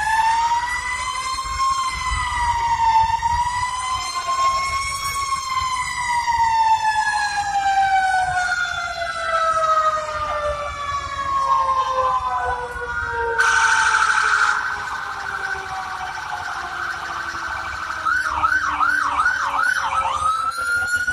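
Emergency vehicle sirens wailing, one slow wail rising and falling and then gliding steadily lower in pitch, with other sirens overlapping. About thirteen seconds in comes a loud horn blast of about a second, and near the end a fast warbling yelp.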